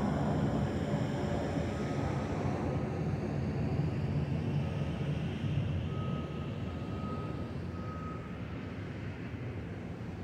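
Jet airliner's engines rumbling overhead, slowly fading as the plane moves away.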